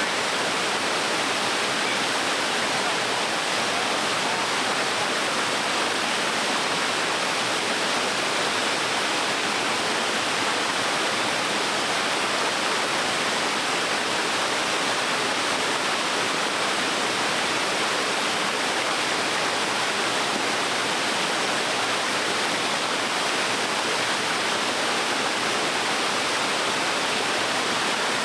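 Small waterfall on a stream, water pouring and splashing in a steady, unbroken rush.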